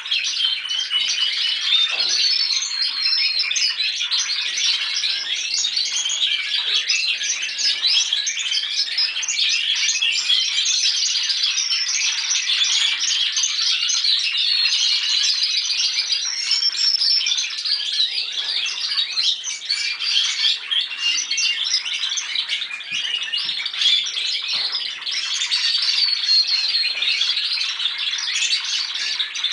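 Several young Spanish timbrado canaries singing at once, an unbroken chorus of fast overlapping trills: young males practicing their song.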